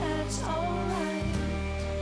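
Background music with a sung melody over sustained instrumental notes.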